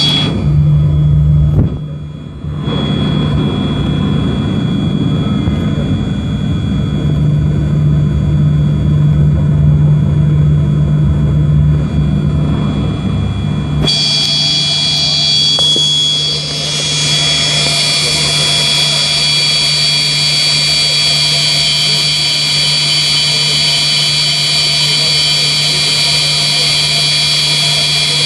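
Yak-42 airliner's turbofan engines running with a steady high whine and a low hum, heard from inside the cabin as the plane rolls slowly on the ground. About halfway through, the low rumble drops away abruptly and the high whine becomes louder.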